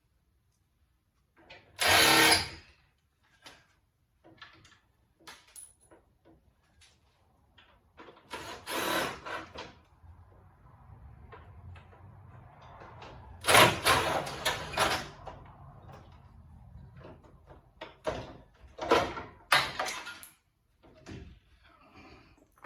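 Plastic grille pieces and clips being worked loose and pulled off a Dodge Dakota's front end, giving several loud bursts of scraping and clattering with small clicks in between. Some of the parts are broken.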